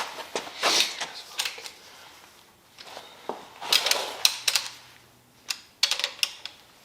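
Metal hand tools clicking and clattering in short runs as cylinder head bolts are threaded into a big-block Chevy engine block. The densest runs of quick clicks come about four seconds and about six seconds in.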